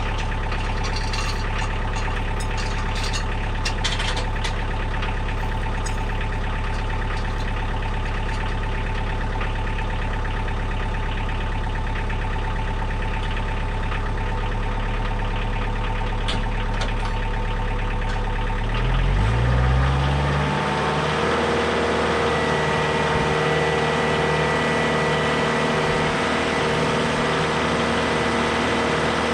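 Diesel compact tractor engine idling steadily, with a few light clanks in the first few seconds. About 19 seconds in it revs up, then runs steadily at higher speed.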